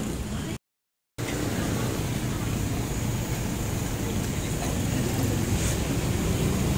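Steady low rumble of road traffic, with a couple of faint clicks later on. All sound drops out for about half a second near the start.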